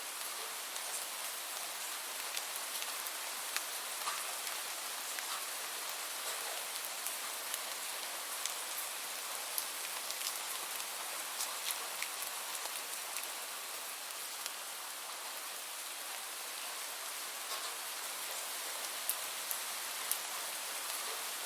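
Steady rain falling, an even hiss with scattered sharp drip ticks of individual drops hitting a surface.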